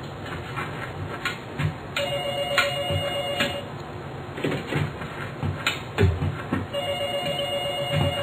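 A telephone ringing: two rings about a second and a half long and some five seconds apart, each a steady pair of tones. Soft low thuds fall between the rings.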